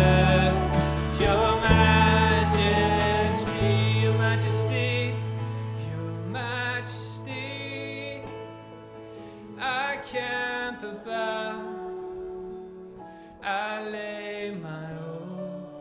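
Worship band music between sung lines: sustained chords over a deep bass that drops out about three and a half seconds in, then a few separately struck chords, growing gradually quieter.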